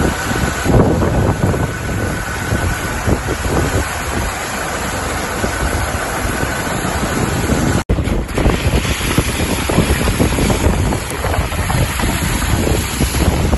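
Strong wind buffeting the microphone over rushing floodwater, broken by a sudden brief dropout about eight seconds in, after which the wind noise carries on, recorded from a moving vehicle.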